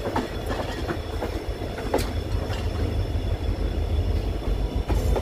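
Passenger train running on the track: a continuous low rumble with irregular clacks of the wheels over the rails, and a faint steady high-pitched whine above it.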